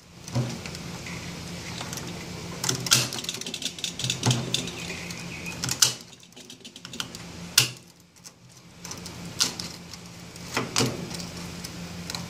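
Aviation snips cutting through the copper wire windings of a vacuum cleaner motor's field coil: a string of sharp snaps and clicks, a second or two apart, as the wire gives. A low steady hum runs underneath.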